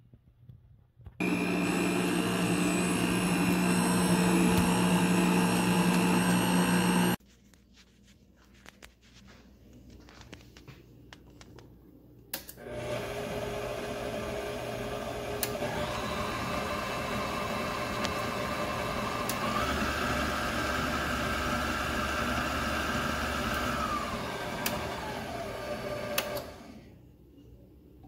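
HOWORK electric stand mixer's motor running steadily for about six seconds and then stopping. After a few seconds of light clicks it starts again, its whine stepping up in pitch twice as the speed dial is turned up, then winding down and stopping near the end.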